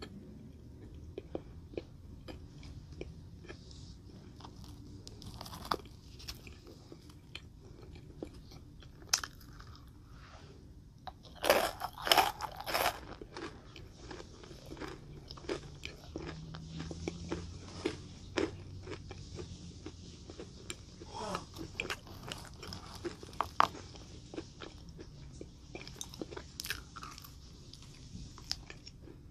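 Close-miked mouth sounds of someone eating sweets: scattered crunches and wet chewing clicks, with a loud flurry of crunching a little under halfway through.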